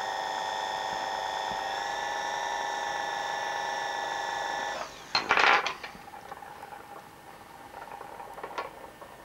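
Watchmaker's lathe running with a steady whine while a graver turns the balance staff; the motor stops about five seconds in. A short loud clatter of handling follows, then a faint click near the end.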